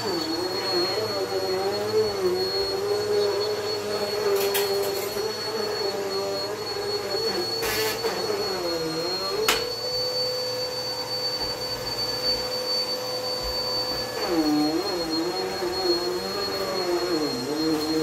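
Upright bagless vacuum cleaner running with a steady high whine, its motor pitch wavering and dipping as it is pushed over rugs. About halfway through there is a sharp click and the pitch holds higher and steady for several seconds, then drops and wavers again near the end.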